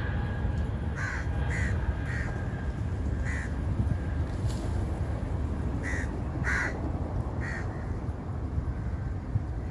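A bird calling: about seven short calls, in two loose groups, over a steady low rumble.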